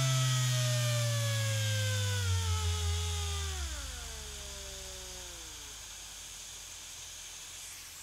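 Electric power tool motor winding down, its whine falling steadily in pitch and dying away over about six seconds, leaving a faint hiss.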